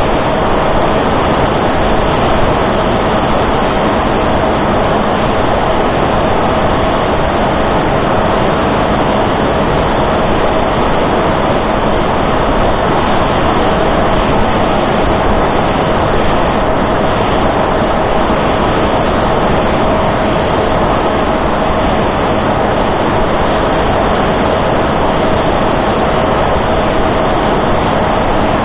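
S800 Reptile flying wing's electric pusher motor and propeller running at steady cruise throttle, heard from the plane's onboard camera: a constant whine under heavy wind rush.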